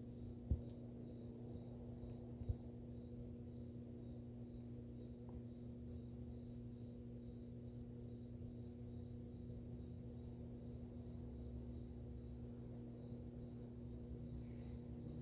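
Aquarium pump humming steadily at a low level, with two short knocks in the first few seconds.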